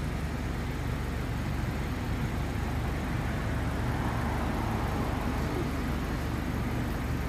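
Steady low rumble of outdoor city background noise with distant road traffic.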